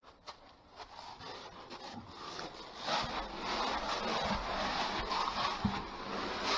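Dry leaf litter crunching and rustling, with rubbing and scraping, as a person crawls through a small cave entrance. It gets louder from about three seconds in.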